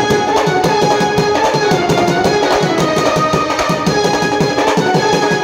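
Maharashtrian banjo-party band music: a quick, steady drumbeat under a wavering melody line.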